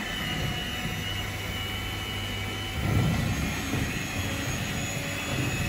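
Electric hand mixer running steadily, its beaters whirring through thick cheesecake batter in a stainless steel bowl, with a louder low rumble about three seconds in.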